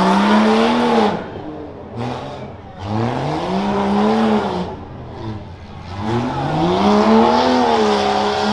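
Rough truck's engine revving hard in surges: the pitch climbs steeply, holds, then drops as the throttle is lifted, three times over, as the truck runs the dirt course.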